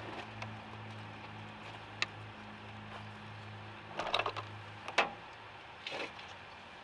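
Sharp clicks and clanks of hands and tools working at a car battery's terminals and hold-down: a single click about two seconds in, then a cluster of knocks around four to five seconds in. A steady low hum runs underneath.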